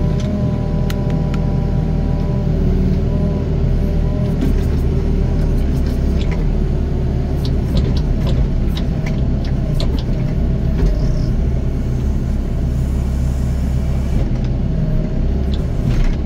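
Doosan DX55 mini excavator's diesel engine running steadily under working load, its pitch wavering early on, with scattered clanks and knocks of the bucket and soil through the middle.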